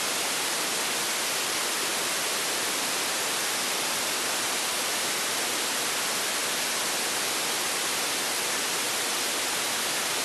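Steady, even hiss of an FM receiver with its squelch open and no signal on the channel: a software-defined radio tuned to a 10-metre FM repeater frequency near 29.52 MHz, playing raw FM noise between transmissions.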